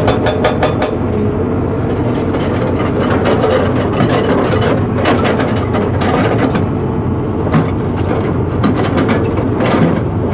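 Hydraulic rock breaker on a Sany excavator hammering rock. Rapid clacking blows come about six a second at the start, then looser, scattered strikes, all over the steady running of a diesel engine.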